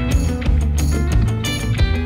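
Background music with a steady beat: pitched instruments over a strong bass line.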